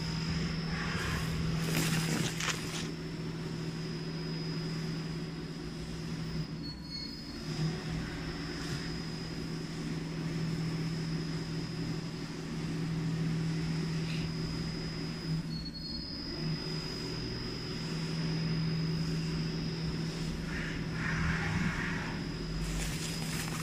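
A CNC milling machine's 1.5 kW high-speed spindle is cutting a metal block under coolant spray: a steady high whine over a low hum and rough cutting noise. The sound dips briefly twice, about 7 and 16 seconds in.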